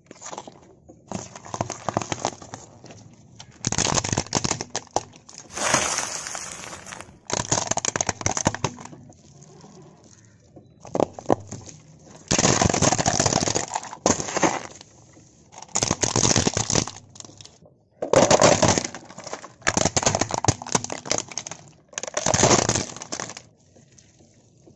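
Objects crushed one after another under a slowly rolling car tyre: about a dozen separate bursts of cracking, crackling and crunching, each lasting a second or two, with short quiet gaps between them.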